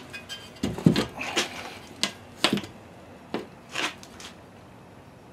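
Hollow concrete block being handled and hung on a toggle bolt set in drywall: several irregular knocks and bumps as it is carried up and set against the wall.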